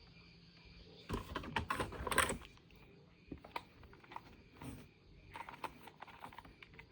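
Light clicking and clattering of small hard plastic objects being handled, such as toys and their packaging, with a quick flurry of clicks about a second in and then scattered single clicks.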